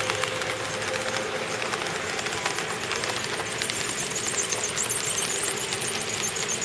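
HO-scale model freight train running along the track: a steady rattle of the wheels with rapid, irregular clicking.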